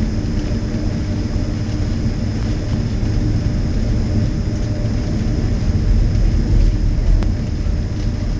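Boeing 767-300ER taxiing, heard inside the cabin: a steady engine hum at taxi power over a low rumble from the aircraft rolling on the taxiway. The rumble swells slightly about six seconds in.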